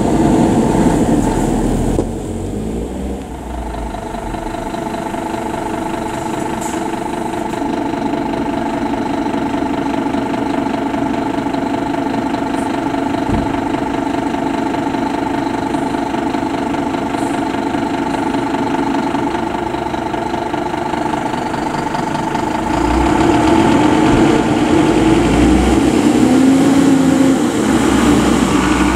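Scania fire engine's diesel engine idling steadily, then revving louder about three-quarters of the way through as the truck pulls out.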